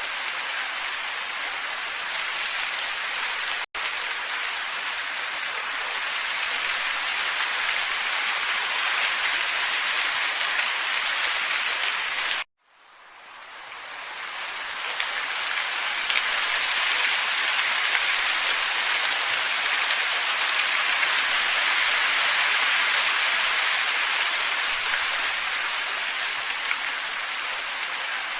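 Steady airy hiss of a looped wind ambience track. It drops out for an instant about four seconds in. About twelve seconds in it cuts out completely, then fades back up over a few seconds.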